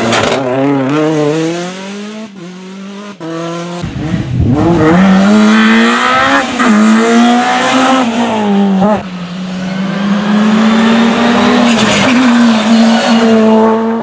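R5 rally cars driven hard on a tarmac stage: their turbocharged four-cylinder engines rev up, drop at each gear change and climb again, loud and close. Several passes follow one another, each breaking off abruptly into the next.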